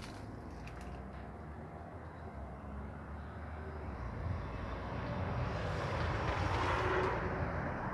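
A vehicle passing by: a rushing noise that swells from about four seconds in, peaks near seven seconds and fades, over a steady low rumble.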